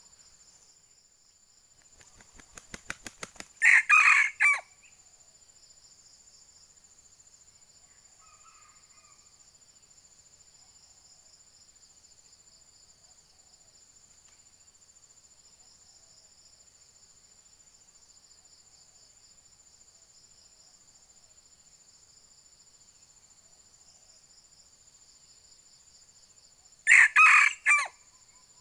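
Red junglefowl rooster crowing twice: a short, broken crow about four seconds in and another near the end. The first crow comes right after a quick run of wing-beats that grows louder. A steady high insect trill runs underneath.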